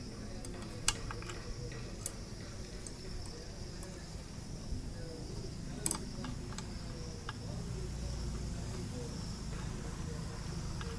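A few sharp clicks and knocks of the geyser's parts being handled as the unit is closed up, including a double click about six seconds in, over a steady high-pitched insect drone and a low hum.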